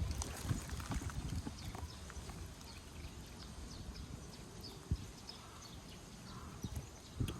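A cat licking a Churu treat from its squeeze tube: a run of quick, soft licking clicks. A sharper knock comes about five seconds in and another near the end.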